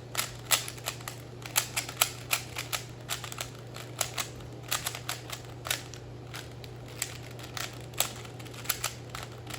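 Rubik's Cube being scrambled by hand: quick, irregular plastic clicks and clacks as its layers are twisted, several a second, thinning out near the end.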